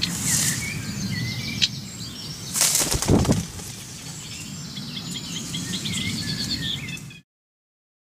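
Wings flapping and reeds rustling as a cuckoo and reed warblers struggle at the warblers' nest, with many short sharp chirps throughout. The loudest flurry comes about two and a half to three and a half seconds in, and the sound cuts off suddenly about seven seconds in.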